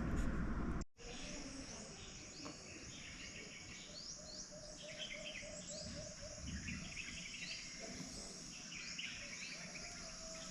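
Forest ambience after an abrupt cut about a second in: birds chirping with short rising calls, over a steady high insect drone. In the middle there is a quick run of short, lower repeated notes.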